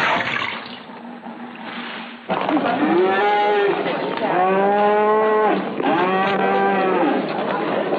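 A short rush of splashing water, then a calf mooing three times in long calls that rise and fall.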